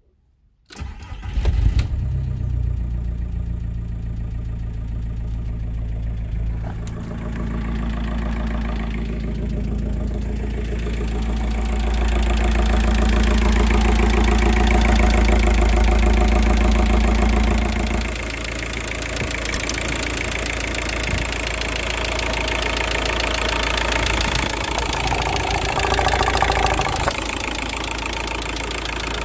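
Volkswagen Passat's 1.9 TDI four-cylinder turbodiesel starting about a second in, then idling, its first run on fresh oil after an oil change. The idle rises and runs louder for several seconds in the middle, then settles back to a steady idle.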